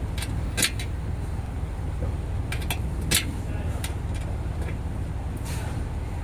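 Scattered sharp metallic clicks and taps of a hex key and screw against a metal storage panel and its bracket as a screw is run in loosely, the loudest a little after half a second in and about three seconds in. A steady low rumble runs underneath.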